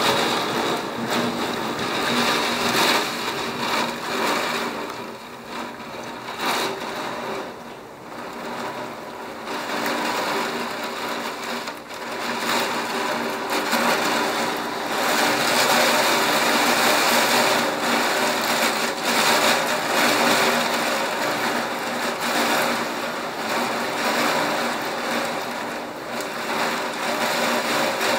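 Heavy rain and gusting wind of a severe thunderstorm, heard as a loud, rushing noise. It eases off a few seconds in, then builds to its loudest about halfway through.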